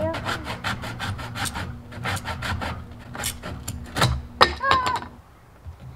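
Handsaw cutting through a wooden board with quick short back-and-forth strokes, about five a second, for three and a half seconds. It ends with a few louder, sharper strokes around four seconds in.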